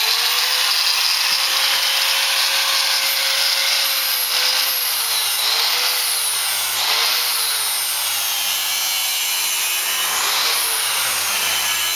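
Handheld power tool grinding metal: a steady, hissing grind with the motor's whine dipping and recovering several times as it is pressed into the work.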